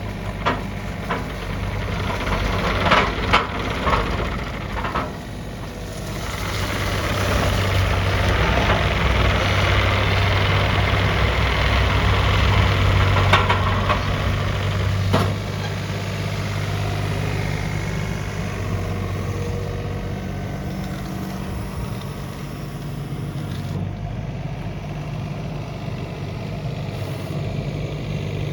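Takeuchi TB225 mini excavator's diesel engine running. There are a few sharp clanks in the first five seconds. From about six seconds the engine runs louder and busier, ends that stretch with a sharp knock around fifteen seconds, then settles to a steady, quieter idle.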